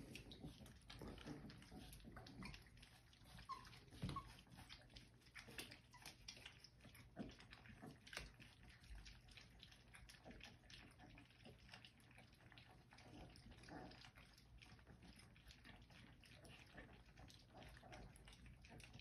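Faint, irregular wet clicking and smacking of a litter of Old English Sheepdog puppies licking and eating from a metal muffin tin, with two short high whimpers close together about four seconds in.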